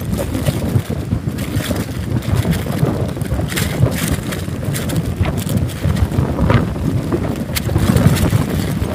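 Wind buffeting the microphone in a steady low rumble, with a few brief rustles and knocks from catfish being dropped into a woven plastic sack.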